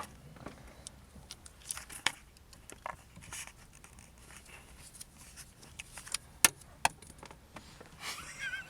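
Small metal clicks and handling noises of a screw being loosened with a key on a steering-wheel quick-release hub and horn button, with two sharp clicks a little over six seconds in.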